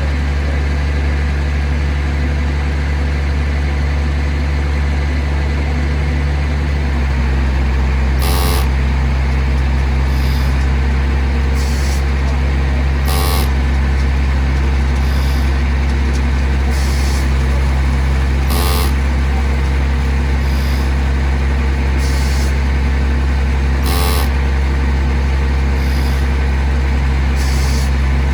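A heavy diesel engine running steadily, its level stepping up about seven seconds in, with short sharp hissing clicks repeating every couple of seconds.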